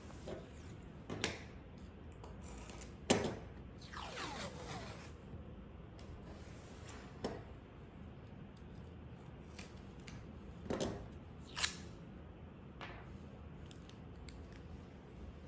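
Paper masking tape being handled: short crackly peeling and rustling sounds broken by sharp snips and clicks, the sharpest about 3 seconds in and again near 11.5 seconds.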